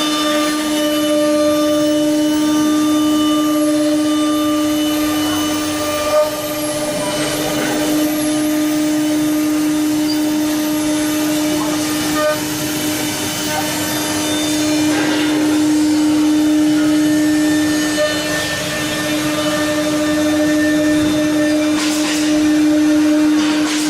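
9 kW HQD spindle of a four-axis CNC router running at constant speed with a steady high whine while it machines a mold, with cutting noise beneath it and a few brief knocks.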